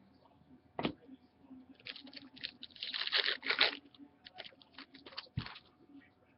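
Trading cards and their packaging being handled: crinkling and rustling, loudest about three seconds in, with a sharp click about a second in, several short ticks later, and a soft thump near the end.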